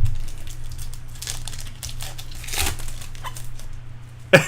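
Plastic trading-card pack wrappers crinkling and tearing as Bowman Chrome packs are opened and handled, with irregular crackles and a sharp knock near the end.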